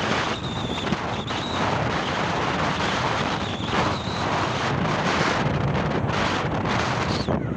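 Wind buffeting the microphone over steady vehicle road noise, with a few faint high chirps.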